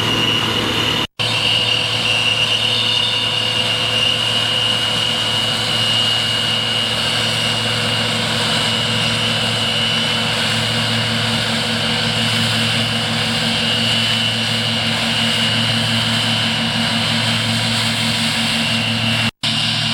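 Large diesel harvest machinery running steadily in the field: a constant engine drone with a high, even whine above it. The sound cuts out for an instant twice, once near the start and once near the end.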